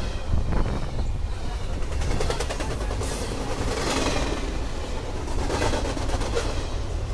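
Norfolk Southern train rolling on the main line: a steady low rumble, with wheels clicking over the rail joints in short runs partway through.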